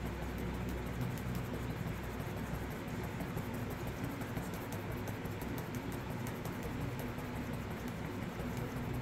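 Steady low room hum with faint scattered ticks; no distinct sound event.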